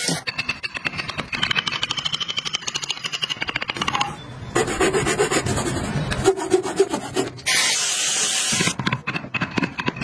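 Hand tools working wood in a run of fast, even scraping strokes, with a saw cutting through wood about halfway through. The sound changes abruptly several times, and a second of steady hiss comes near the end.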